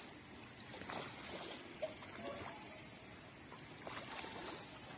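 Faint trickling, flowing water, with a few brief faint tones about two seconds in.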